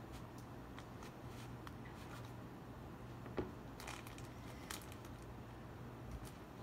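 Wire loop sculpting tool scraping and carving out leather-hard clay: faint, irregular scratches with a sharp tick about halfway through and a couple of longer scrapes soon after.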